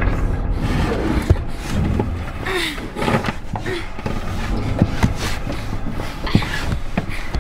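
Low steady rumble with scattered sharp knocks and clicks, and a few short rising-and-falling sounds about a third and a half of the way in.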